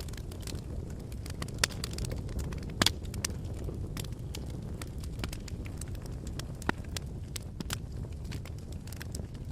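Fire crackling: a steady low rush of flames with frequent irregular sharp pops and snaps, two louder pops a couple of seconds in.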